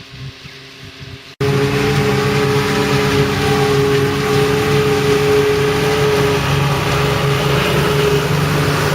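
Heavy diesel silage machinery running steadily at working revs. A fainter engine hum cuts off abruptly about a second and a half in, replaced by a much louder, steady engine drone with a rushing noise over it.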